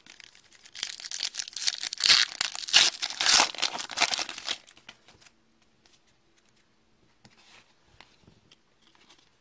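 A hockey card pack's wrapper being torn open and crinkled by hand: a crackling tear that starts about a second in and stops at about four and a half seconds, followed by a few faint ticks.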